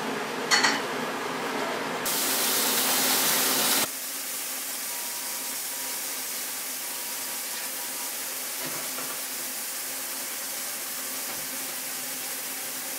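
A steady hiss with no distinct strikes, louder and brighter for a couple of seconds from about two seconds in, then settling to an even level.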